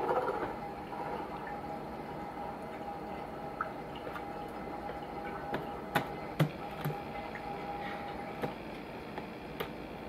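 A baby's hands patting and tapping a laptop's keys and touchpad: a handful of scattered sharp clicks and taps, the loudest about six seconds in. Under them runs a faint steady tone that stops near the end.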